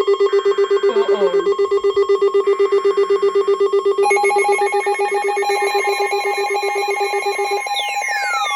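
Electronic emergency-alert alarm beeping rapidly at one steady pitch, several beeps a second. About halfway through, a second, higher beeping tone joins it. Near the end the lower tone stops and several falling electronic sweeps begin.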